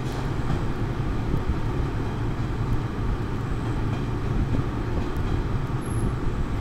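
115-series electric train pulling away from the platform: a steady low rumble with a few faint clicks.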